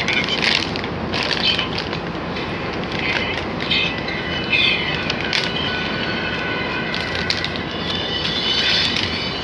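A thin plastic bag crinkling and rustling in crackly bursts as food is shaken out of it onto a plate, over a steady loud rushing noise.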